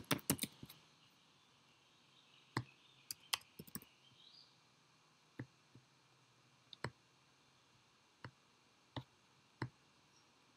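Computer keyboard typing in a quick run of keystrokes at the start, then single clicks of keys or a mouse every second or so.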